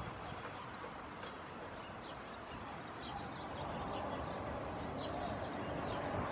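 Jet engines of a Boeing 737-800 running at idle as it taxis, a steady hum that grows slightly louder toward the end, with small birds chirping briefly over it.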